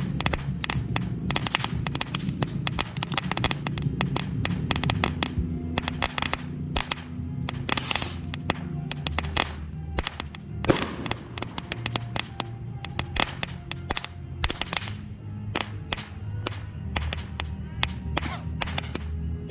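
Crackling comet fireworks going off: a dense, continuous run of sharp crackles and pops, with one louder bang about ten seconds in.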